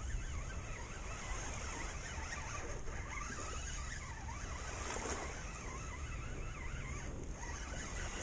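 Waves washing, with wind rumbling on the microphone.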